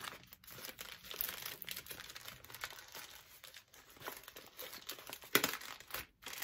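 Plastic packaging crinkling and rustling as it is handled and unwrapped, with a louder crackle about five seconds in.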